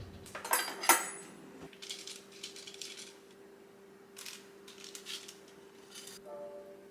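Light clinks and clatter of kitchenware, with a few sharp clicks about a second in and softer scraping later, over a faint steady hum.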